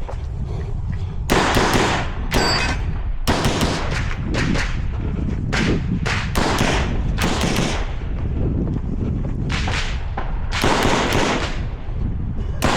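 Pistol fire from a CZ Shadow 2 9mm during a timed shooting stage: irregular strings of sharp shots, many in quick succession, with short gaps between the strings.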